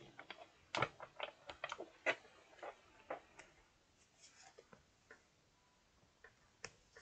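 Tarot cards being handled and shuffled: light, irregular clicks and taps of the cards, close together for the first few seconds and then more scattered.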